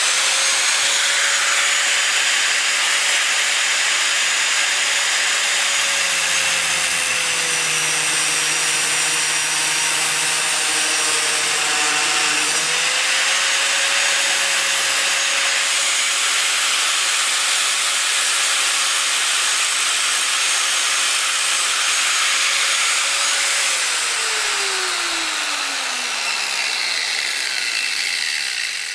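Power tool running at speed while cutting a catch-can line that is too short, its motor pitch dipping a little about a third of the way in, then winding down over the last few seconds.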